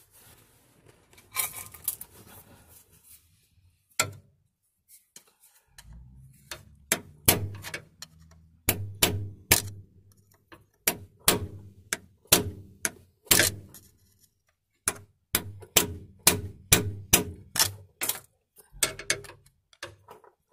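Hammer tapping a long metal bar held against the rear output oil seal of a Turner T5A gearbox, to drive the old seal out of its housing. There are about twenty sharp knocks in short runs, often about two a second, starting some seven seconds in.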